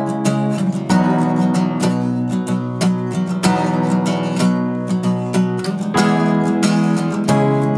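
Acoustic guitar strumming chords in a steady rhythm, with a Korg stage keyboard playing sustained chords underneath: the instrumental intro of a song, no vocals yet.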